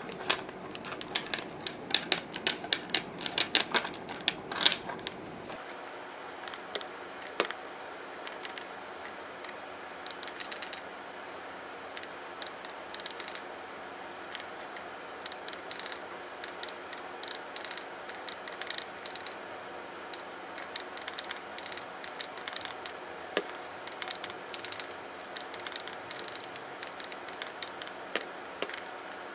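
Gel polish bottles clacking against the table and each other as they are set down and rearranged, louder and dense for the first five seconds. After that, light plastic clicks on and off from the keys of a Brother P-touch label maker being pressed.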